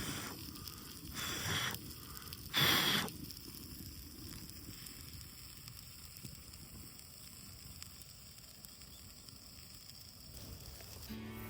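Wood fire burning in a pail-can stove, crackling quietly, with two short louder rushes of noise, the louder about two and a half seconds in.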